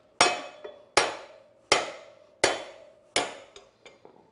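Hammer striking the driver of a collet-type bearing remover sunk into a sealed wheel bearing: five heavy blows about 0.7 s apart, each ringing briefly, with a few lighter taps between. The bearing is seized in the aluminium hub of a Harley-Davidson front wheel and does not come out.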